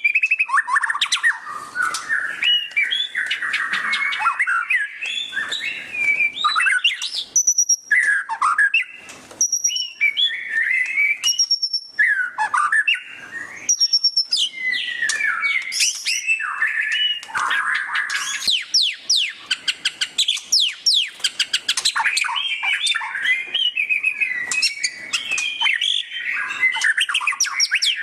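White-rumped shama (murai batu) singing loudly without a break: a fast, varied run of chattering trills and quick downward-sweeping notes, with a few clear high whistled notes a third of the way in.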